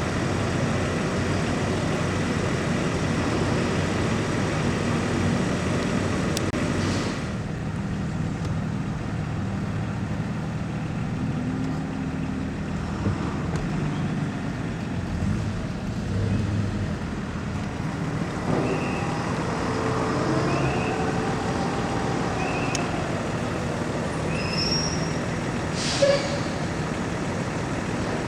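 Vehicle engines running as traffic drives off a ferry's car deck. The rumble thins abruptly about a quarter of the way in. Later come a few short high beeps and a single sharp knock.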